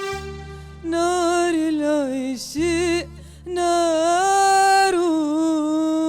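A female vocalist singing long held phrases with vibrato over a low, steady backing tone, with a short break about halfway through.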